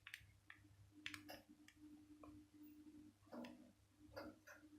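Faint, irregular clicks of a Nokia 8210's keypad buttons being pressed, against near silence.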